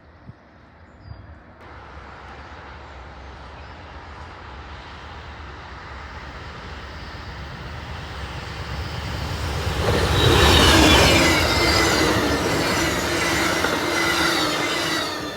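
Amtrak passenger train approaching and passing at speed, its noise building steadily to a loud peak about ten seconds in, with high-pitched wheel squeal over the rumble as the cars go by, then falling away near the end.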